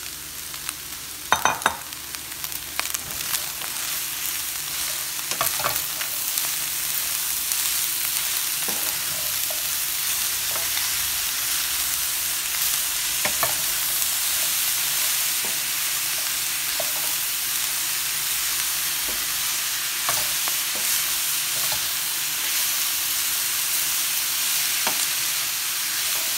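Ground beef and chopped vegetables sizzling in a stainless steel skillet while a wooden spoon stirs them, with now and then a knock of the spoon against the pan. A few sharp knocks about a second and a half in, as the vegetables go in; the sizzle then grows and holds steady.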